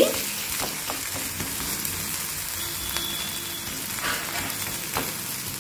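Oil sizzling steadily under a rice-flour roti frying on a hot griddle (tawa), with a few light clicks of a steel spatula against the pan.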